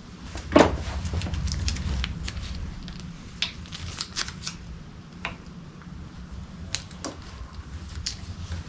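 Hand tools and small metal parts of an outboard motor's magneto assembly clicking and clinking as they are handled and fitted, with a sharp knock about half a second in. A steady low hum runs underneath.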